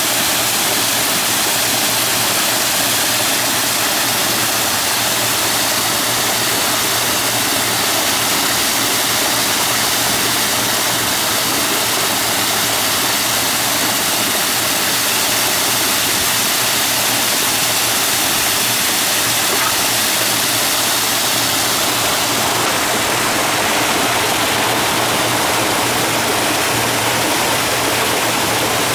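Water rushing and splashing steadily off a small 1 m steel overshot water wheel, its flume running full to capacity.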